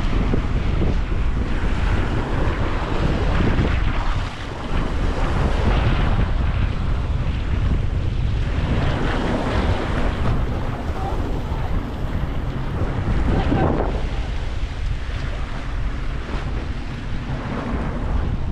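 Strong wind buffeting the camera microphone: a loud, uneven rumble.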